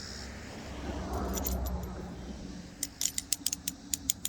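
Hose pinch-off pliers being handled: a soft rustle, then a quick irregular run of sharp metallic clicks and clinks from about three seconds in.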